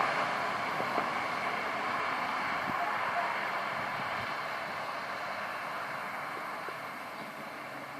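Outdoor background noise with a faint, distant public-address voice lingering from far-off siren loudspeakers, slowly fading.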